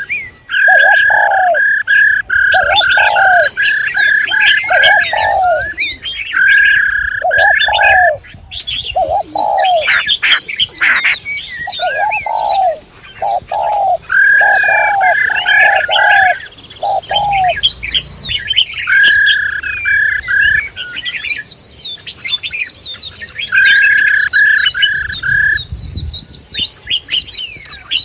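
Several cage birds calling at once. Rapid high chirps and trills run over runs of repeated lower whistled notes, a few notes a second, which stop and restart every few seconds.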